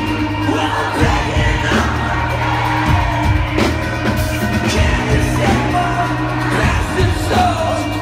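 Live metal band playing loud through a concert PA: heavy drums, sustained low bass and guitar, with a singer's vocals over the top.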